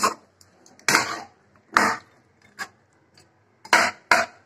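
Metal spatula scraping and clanking against a metal kadhai while stirring a curry, in separate strokes about once a second.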